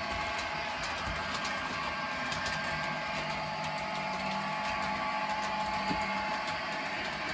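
Model diesel locomotive running on the layout track: a steady engine-like hum with a few steady tones and light, regular clicking from the wheels.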